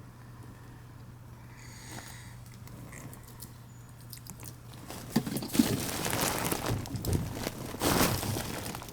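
Low steady hum, then about five seconds in a busy run of crunching, crinkling handling noises with sharp clicks and knocks, as parts are worked by hand.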